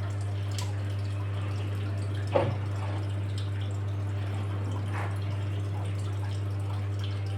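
Washing machine running mid-wash: a steady motor hum under water sloshing and dripping in the drum, with one brief louder splash about two seconds in.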